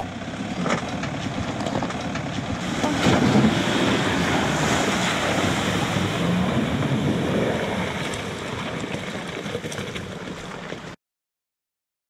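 Toyota Land Cruiser Prado wading through a shallow, rocky river: water splashing and rushing around its wheels. It swells about three seconds in, holds, then cuts off abruptly near the end.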